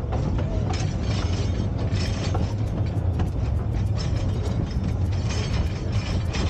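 Open narrow-gauge railroad passenger car rolling along the track: a steady low rumble from the wheels on the rails, with many short, sharp clicks and rattles over it.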